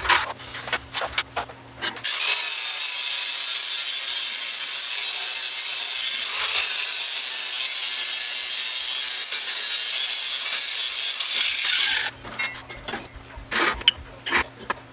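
A hand tool scraping along a steel tube: a steady rasping that starts about two seconds in and stops abruptly about ten seconds later. Before and after it come short clinks of the metal tubes being handled on the table.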